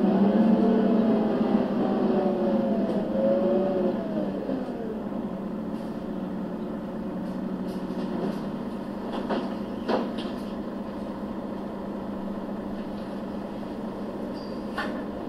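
Mercedes-Benz O 530 GL CapaCity articulated bus's diesel engine and drivetrain running, wavering up and down in pitch for the first few seconds, then easing into a steady low hum. A few sharp clicks come later on.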